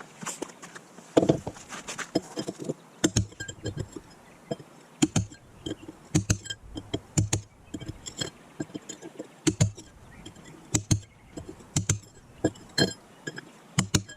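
Hammer striking a steel chisel against a concrete driveway, sharp clinking blows at an uneven pace of about one or two a second, chipping out loose concrete along a crack to prepare it for filler.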